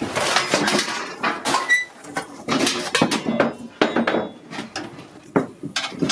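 Clattering and knocking of metal objects being moved about in a cluttered pile, with a brief metallic ring about two seconds in.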